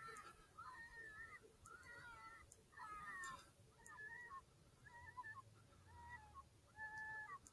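Electronic predator caller playing a rabbit distress sound: faint, wavering, squealing cries, about one a second, each about half a second long.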